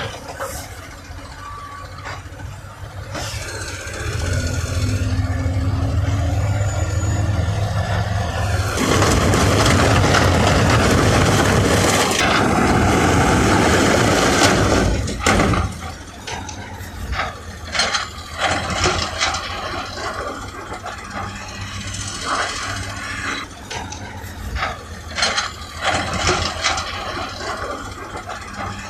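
Heavy diesel construction machinery at work: an engine runs and rises slightly in pitch, then a loud rushing noise lasts several seconds and cuts off suddenly, followed by irregular clanks and scrapes.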